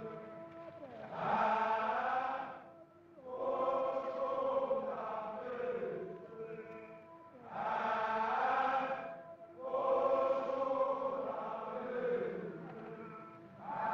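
Background music of choral chanting: voices singing in swelling phrases a few seconds long, each fading before the next begins.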